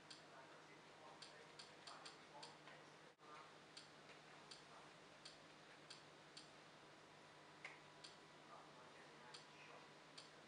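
Faint, irregularly spaced clicks, about a dozen, from navigating the XBMC settings menu, over a low steady hum.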